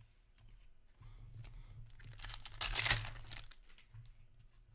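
Hockey card pack wrapper crinkling and tearing in one loud burst of about a second midway, with light clicks and rustles of cards being handled around it.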